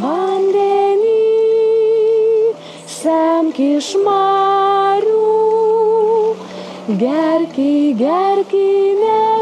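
Children's voices humming or singing a wordless tune: each note slides up and is then held for a second or two, over a faint low steady tone.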